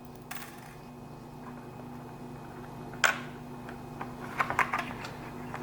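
Small parts being handled while a metal washer is test-fitted over a rubber grommet: one sharp click about three seconds in, then a quick run of light clicks near the end, over a steady low hum.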